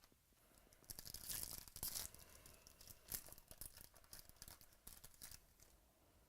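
A foil trading-card pack wrapper being torn open and crinkled: a run of crackling rustles starting about a second in and dying away after about five seconds.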